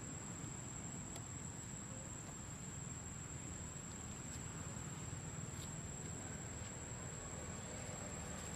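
Insects droning: one unbroken, steady high-pitched tone over a low outdoor rumble, with a few faint clicks.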